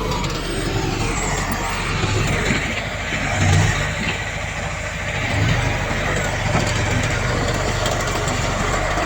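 Heavy diesel earthmoving machinery running, a bulldozer or dump truck engine working, with a louder surge about three and a half seconds in.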